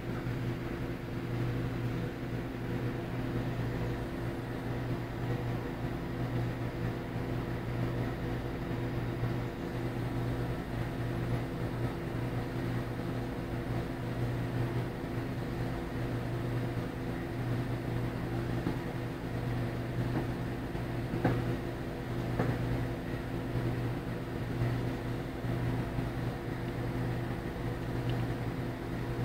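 Vehicle engine idling with a steady, even hum, with a couple of faint clicks about two-thirds of the way through.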